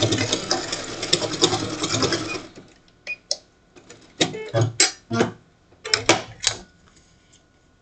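Domestic sewing machine running at speed, sewing a decorative stitch, and stopping abruptly about two and a half seconds in. A few scattered short clicks and knocks follow.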